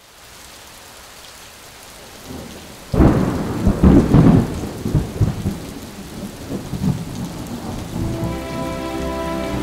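Steady rain with a loud thunderclap about three seconds in, rumbling on for a couple of seconds before fading back into the rain. Soft music with held notes comes in near the end.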